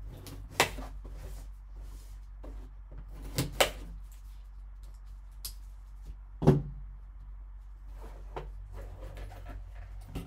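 A sealed cardboard card box being slit open with a folding knife and handled: scattered clicks, scrapes and knocks, the loudest a dull knock about six and a half seconds in, with the lid being lifted near the end.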